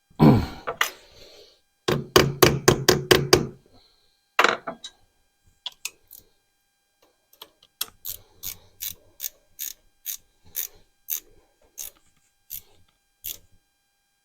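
Hand ratchet wrench being worked: a knock, a quick run of clicks, another knock, then slower, evenly spaced clicks about two a second.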